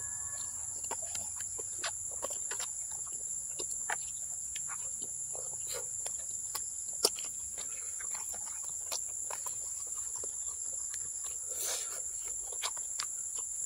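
Steady high-pitched trilling of field insects, with frequent short, wet clicks and smacks of close-up chewing and of fingers handling soft boiled cow skin in chili sauce; one click about halfway through is louder.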